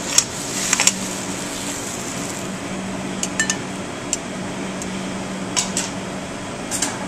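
Metal tongs clinking against a steel sauté pan while serving pasta: a few sharp clinks in the first second, then occasional lighter taps. A steady low hum runs underneath.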